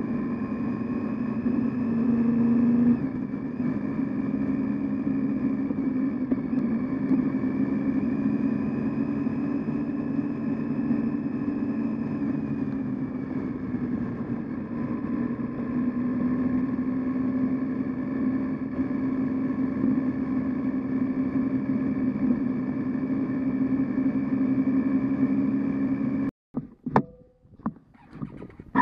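Triumph Tiger 800 XC's three-cylinder engine running steadily on board at a gentle cruise, its pitch rising and falling a little. The sound cuts off abruptly near the end, leaving a few faint knocks.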